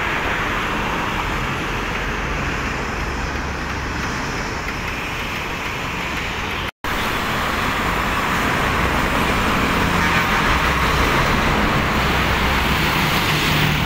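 Steady road traffic noise, broken by a brief dropout about halfway. Afterwards it is louder: a motorcycle and then a large multi-axle cargo truck pass close by, the truck's diesel engine running low under the tyre noise near the end.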